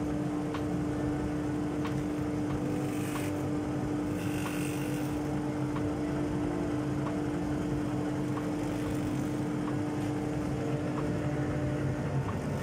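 JIB 21106 drum sander and its chip extractor running steadily, with faint regular ticks under the steady hum, as a plywood sheet feeds through on the conveyor. Brief hissing about three to five seconds in, as the sanding drum only lightly touches the plywood.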